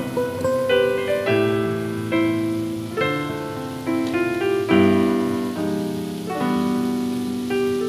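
Background instrumental music: a piano playing a gentle run of notes and chords.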